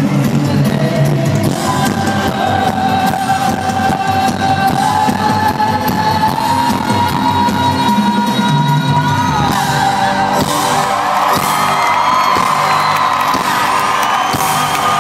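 A live band playing loudly in a concert arena, heard from within the crowd, with a long held sung line. From about ten seconds in, crowd whoops and cheers rise over the music.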